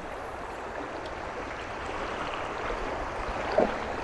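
Fast river current rushing steadily around a wading angler, with one brief knock about three and a half seconds in.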